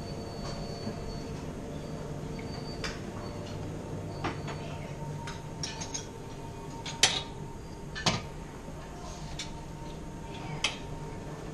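Scattered clinks of dishes and cutlery over a steady room hum, with the two sharpest clinks about seven and eight seconds in.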